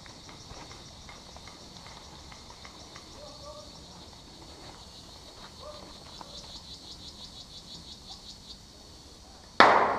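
Insects chirring steadily in the background, a rapid pulsing trill for a couple of seconds past the middle. Near the end a sudden loud sharp crack that dies away quickly.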